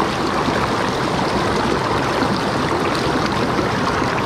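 Fast-flowing river water rushing and churning around boulders, a steady close rush with no let-up.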